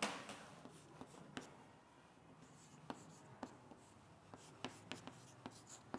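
Chalk writing on a chalkboard: faint, irregular taps and short scratches as letters and numbers are chalked on the board.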